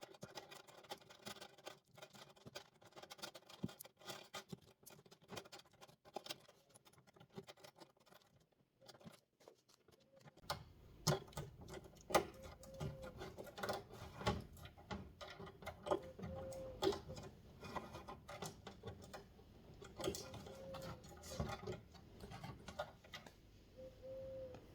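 Faint, irregular clicking and rustling of plastic parts being handled as a head spa's water pump is fitted back into place. It grows busier about halfway through, with a few brief squeaks.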